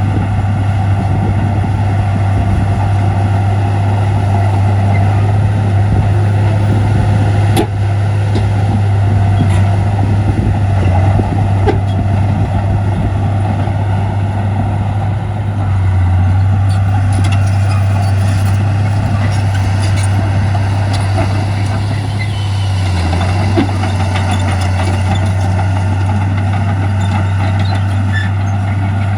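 Heavy diesel earthmoving machinery running close by, a steady low engine drone with little change, and one sharp knock about seven and a half seconds in.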